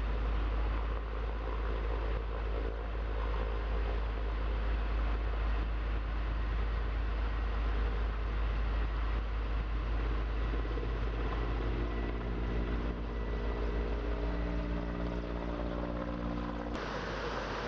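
A steady mechanical rumble, heavy in the bass, with a hum of several steady tones coming in during the second half. Near the end it cuts off suddenly to a plain rushing noise.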